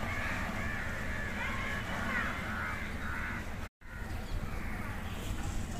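Birds calling in the background, over a steady low background noise, with a brief total dropout in the sound about two-thirds of the way through.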